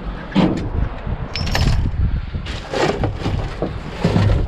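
Several sharp clattering knocks and rattles, about five over four seconds, with wind rumbling on the microphone underneath.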